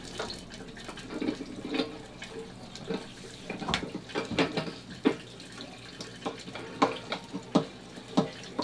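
Water running from a Camco Swivel Stik tank wand on a garden hose into an RV toilet bowl while the wand is worked down through the bowl, with irregular knocks and clacks of the wand and hose against the toilet.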